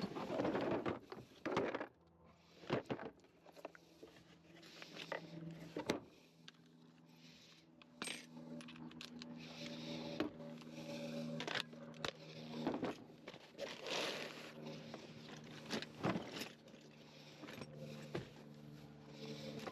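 Metal tools and parts clinking, knocking and scraping as they are handled, in irregular clicks scattered through the stretch, over a steady low hum.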